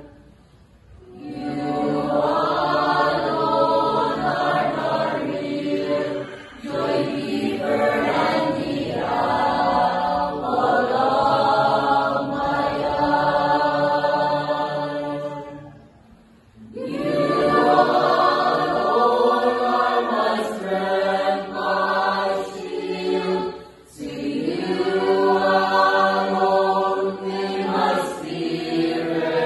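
A church choir singing in long phrases, with brief pauses between them near the start and about six, sixteen and twenty-four seconds in.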